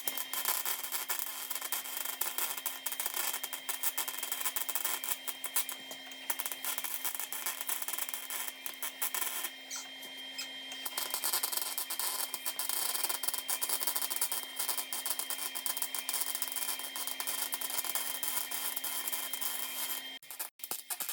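Welding arc crackling and spitting steadily while gaps in a rust-repair patch on a car body's underside are filled, with short pauses about 6 and 10 seconds in, and a stop near the end.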